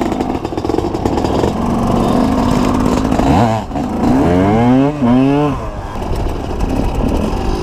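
Two-stroke KTM EXC enduro motorcycle engine running under a steady low rumble, revving up twice in quick rising sweeps about halfway through as the bike accelerates along a dirt track.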